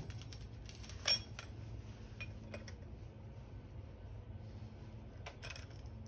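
Handling clicks and clinks of a USB power socket and its mounting bracket as they are turned over in the hands, with one sharper click about a second in and a few fainter ones later.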